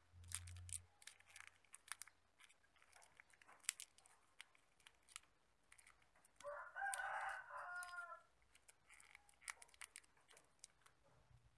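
Faint crinkling and clicking of a plastic drinking straw being folded and slid into itself by hand. A rooster crows once in the background about halfway through, the loudest sound.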